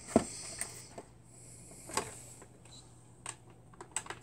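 A few scattered clicks and light knocks of blister-carded toy packaging being handled, over a faint low hum.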